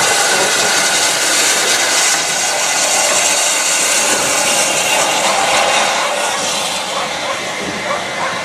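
Steam-hauled train of BR Mark 1 coaches rolling past as it pulls away, a steady hissing rush that eases slightly near the end.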